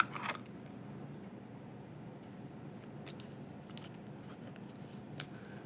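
Quiet room tone with a few faint, light clicks and rustles: a trading card being handled and slid into a plastic protective holder.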